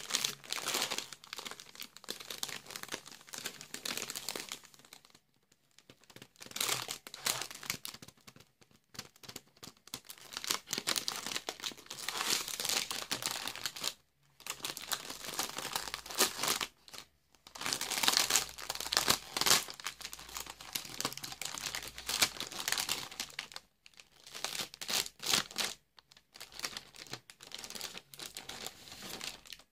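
Clear plastic packaging bag crinkling and rustling as hands handle a ring binder inside it and work it out of the wrapping. It comes in irregular bursts with several short pauses.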